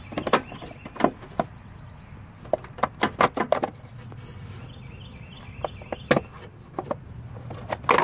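Sharp plastic clicks and knocks as the engine-bay fuse box cover is unlatched and pulled off. A quick run of clicks comes a few seconds in, with more later.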